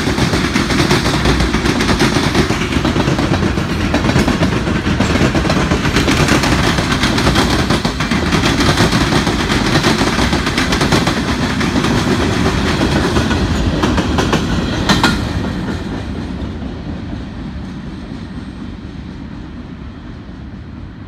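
Freight train of covered hopper cars rolling past with a steady clatter of wheels on the rails and rattling cars. A sharp clank sounds about three quarters of the way through, then the sound fades as the end of the train moves away.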